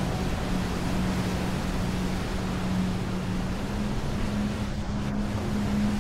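Steady wash of ocean surf noise, with a low sustained drone note from ambient music underneath that shifts up slightly about halfway through.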